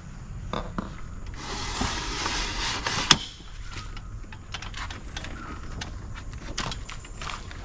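Aluminium rooftop-tent ladder being pulled out across the tent base: a scrape of about a second and a half ending in a sharp clack, then a few lighter clicks and knocks as it is handled.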